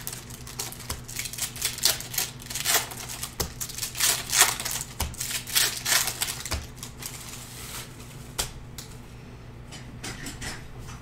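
Panini Prizm retail trading-card pack being opened by hand: the foil wrapper crinkles as it is peeled, then the cards click and snap against each other as they are handled, in a rapid run of clicks that thins out to a few after about seven seconds.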